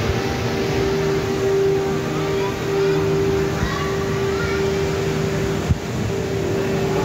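Steady mechanical drone of an indoor theme park hall: a constant hum with a held tone over a wash of noise, with faint distant voices. A single sharp knock comes about two-thirds of the way through.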